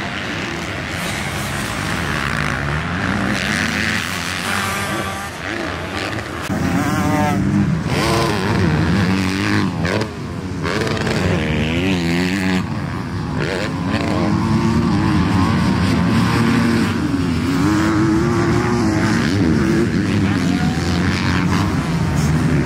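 Dirt bike engines being ridden hard around a motocross track, several bikes at once, their pitch climbing and dropping over and over with throttle and gear changes.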